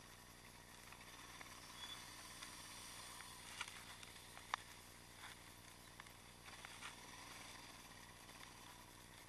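Faint, muffled running noise of a Yamaha XT660X supermotard rolling slowly, with a few sharp clicks and knocks between about three and a half and seven seconds in.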